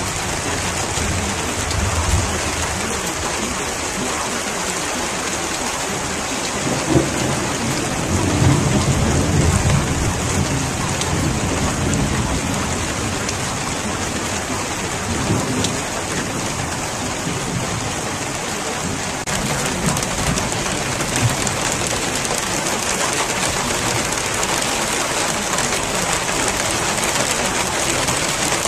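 Steady rain falling, with low rolls of thunder; the strongest roll begins about seven seconds in.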